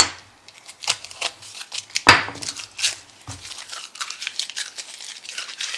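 Small cut wooden blank pieces handled and set down on a workbench: a run of light clicks and rustling, with two sharp knocks, one at the start and a louder one about two seconds in.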